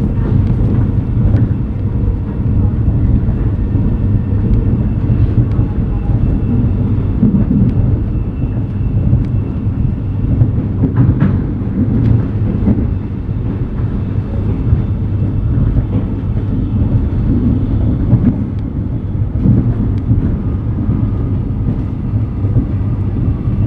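Steady low rumble of a suburban electric train running between stations, heard from inside the carriage, with a few faint clicks.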